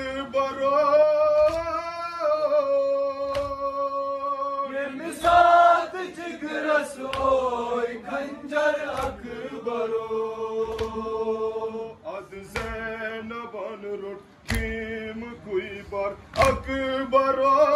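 A group of men chanting a noha (Shia lament) together, holding long sung notes that change pitch every few seconds. Sharp hand slaps on chests (matam) come every second or two.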